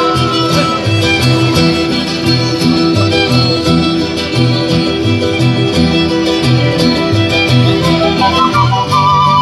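Live folk ensemble playing a song: upright-held flutes and violin carry the melody over strummed guitars and a large bass drum beating a steady rhythm.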